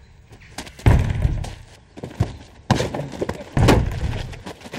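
Heavy blows against a wooden gate: three thuds at uneven gaps, each ringing on briefly.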